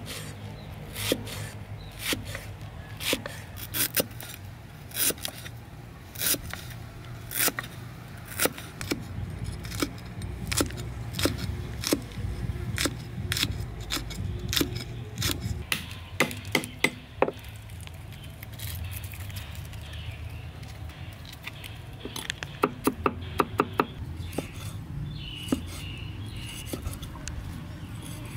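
Steel cleaver chopping food on a chopping board, sharp single strikes about once a second, then a quick run of about six strikes a little past twenty seconds in, over a steady low hum.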